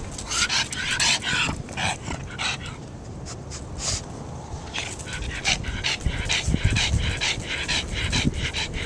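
Pug panting hard and fast, about three breaths a second, in two spells with a short lull in the middle.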